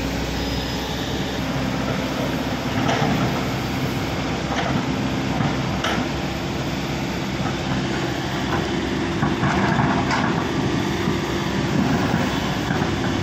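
Kobelco SK210 excavator's diesel engine running steadily while the machine digs in broken rock, with a few sharp knocks and clatters of stone against the bucket spread through the stretch.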